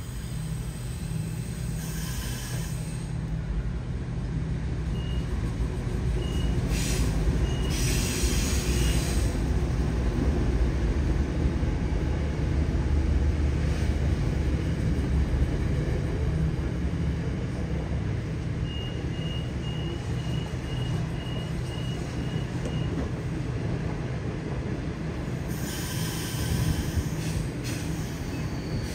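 Freight train hauled by a Pacific National diesel locomotive passing at low speed, a steady low rumble of engine and rolling wagons that builds to its loudest around the middle. Sharp hisses of air come at several points, and two runs of short, evenly spaced high beeps sound a few seconds apart.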